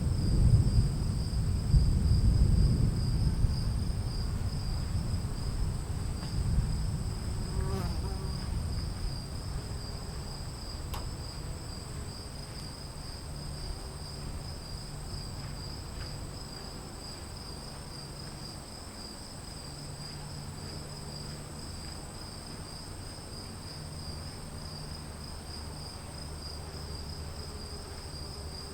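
A roll of thunder begins at the start and rumbles low for several seconds, then slowly dies away. Under it and after it, crickets keep up a steady high chirring.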